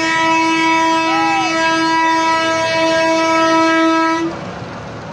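A vehicle horn held in one long steady blast of about four seconds, cutting off sharply.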